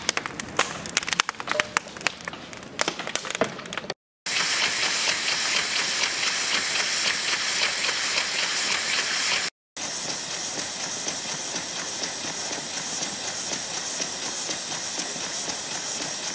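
Irregular sharp clicks and knocks for about the first four seconds. Then the sound switches abruptly to a small model steam engine running, a steady hiss of steam with a fast, faint chatter, which carries on as an even hiss after a brief break.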